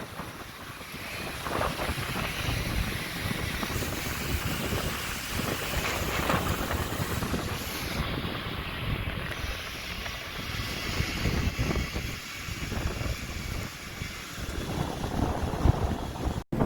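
Wind buffeting the microphone over the steady wash of ocean surf on a beach. The sound drops out for a split second near the end.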